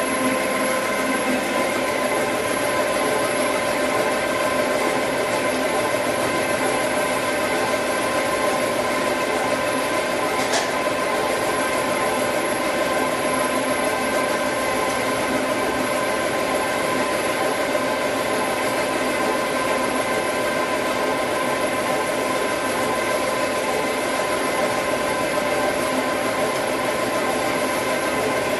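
Dry offset cup printing machine running steadily: a continuous mechanical whir with several steady tones held over it. One brief click about ten seconds in.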